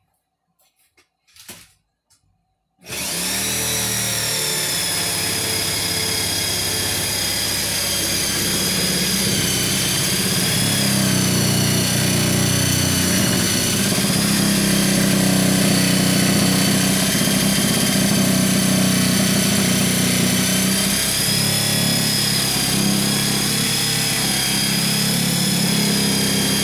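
A few faint clicks, then a handheld power tool starts about three seconds in and runs steadily with a high whine, its pitch dipping slightly a few times.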